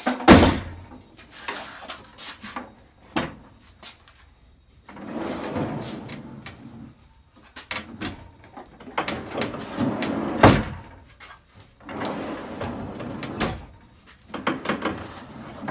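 A heavy thickness planer is slid out and pushed back in on full-extension drawer slides, in several runs of a second or two each. A loud thump comes right at the start and another about ten and a half seconds in, as the slides reach the end of their travel.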